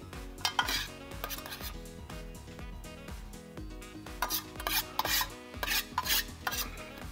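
Metal tongs scraping and clicking in short bursts, scooping fried onions out of a stainless steel tray onto a sandwich on a wooden cutting board. The bursts come about a second in and again from about four to six and a half seconds in.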